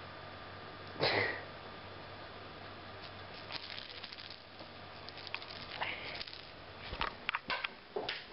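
A cat gives one short chirping call about a second in. Scattered light clicks and taps follow, then a dull thump near the end as the cat jumps down off the bed.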